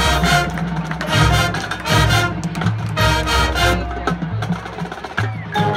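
High school marching band playing: brass chords and bass notes over drums and sharp percussion hits.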